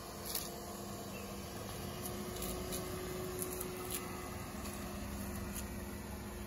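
Maruti Suzuki WagonR Stingray's small three-cylinder petrol engine running at low speed as the car creeps over a dirt track, a steady hum with a low rumble that grows from about two seconds in, and a few light clicks.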